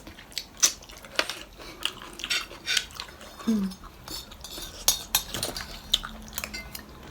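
Eating utensils clicking and clinking irregularly against dishes, with some chewing: a meal being eaten.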